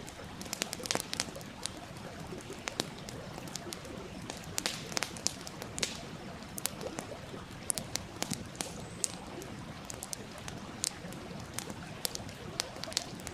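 Wood fire crackling, with frequent irregular sharp pops over the steady rush of a flowing stream.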